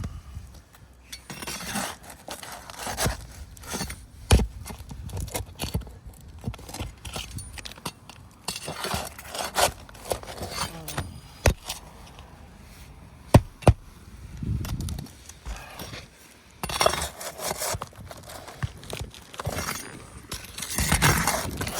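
Irregular gritty scraping and crackling with scattered sharp taps and knocks, from work and footsteps on an asphalt shingle roof.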